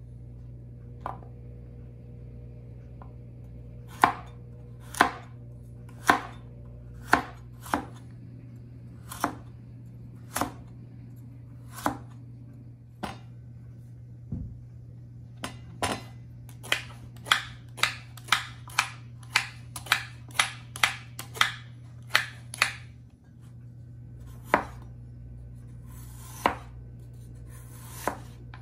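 Chinese cleaver chopping raw carrot and daikon radish on a cutting board, each chop a sharp knock of the blade on the board. The chops come about one a second at first, then in a quicker run of about two a second, then a few spaced ones.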